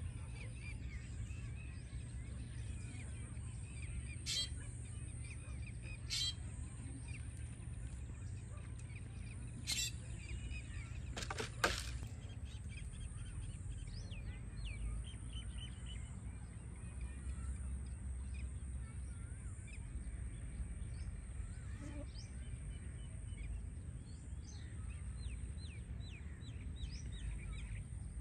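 Outdoor ambience: a steady low rumble with small birds chirping faintly, the chirps thicker in the second half. A few sharp taps stand out in the first half, two of them close together just before the middle.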